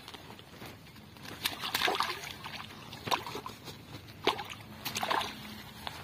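Water splashing and sloshing in short, irregular bursts, four or five of them, at the water's edge during hook fishing in a river.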